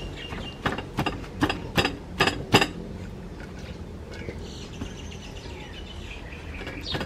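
Wooden pestle pounding shredded green papaya in a stone mortar, about six sharp strikes in quick succession over the first two and a half seconds. Faint bird chirping follows.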